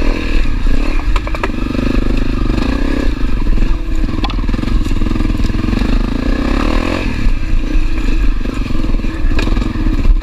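Honda CRF250L's single-cylinder four-stroke engine running under load at low trail speed. Its note shifts about seven seconds in, and a few sharp knocks and clatter come from riding over rocks.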